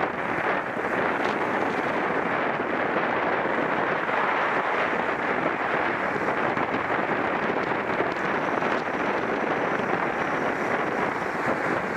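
Steady wind rush on the microphone, with a faint high whine joining in about eight seconds in and fading near the end.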